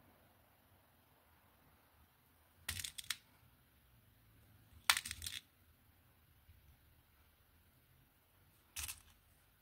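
Small glass and metal beads clicking as they are picked up and slid onto clear elastic bead cord: three short clusters of sharp clicks, about three seconds in, about five seconds in, and near the end.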